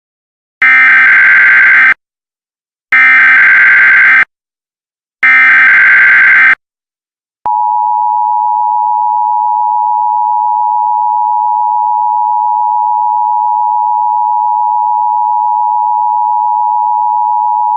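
Emergency Alert System tones: three short, loud, buzzy SAME header data bursts, each a little over a second long with about a second between them. About seven seconds in, the steady two-tone EAS attention signal begins and holds. Together they open an emergency alert message.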